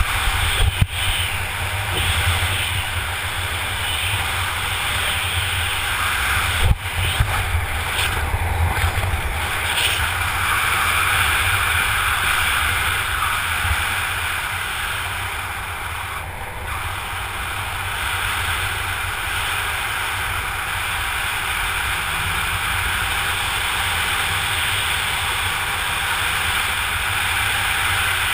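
Steady wind rushing over the microphone of a skydiver's camera during a parachute flight, a deep buffeting rumble with a hiss above it. A couple of sharp knocks break in, one near the start and one about seven seconds in.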